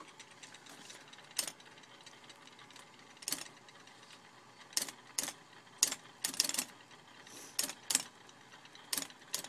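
IBM Executive typewriter's keys being struck one at a time, giving a dozen or so sharp mechanical clacks at irregular, slow intervals. The carriage is not advancing as it should, so the machine is not working properly.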